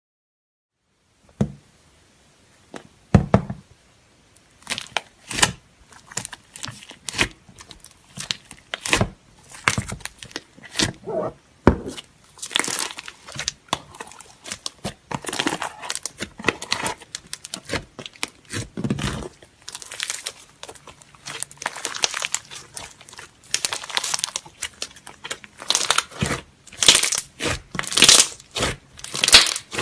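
Slime being squeezed, stretched and pressed by hand, making irregular crackling, popping and crinkling sounds that come thicker toward the end.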